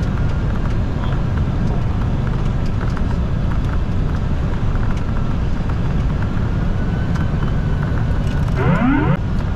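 Steady cockpit noise of a Boeing 747-400F on final approach: a loud, dense rumble of airflow and engines. A brief rising tone sounds near the end.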